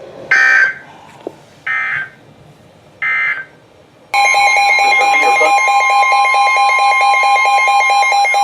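Emergency Alert System SAME header: three short, harsh data-tone bursts about a second and a half apart, then a loud, steady multi-pitch attention tone begins about four seconds in and holds, signalling that a new weather warning is about to be read.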